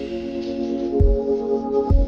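Background music: held keyboard chords with a deep drum beat, struck about a second in and again near the end.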